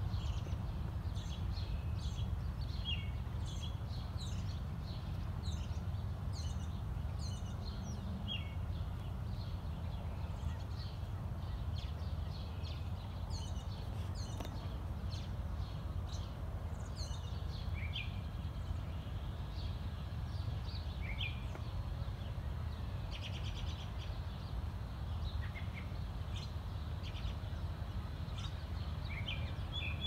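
Several small songbirds chirping and singing, many short, high calls and trills overlapping one another, over a steady low rumble.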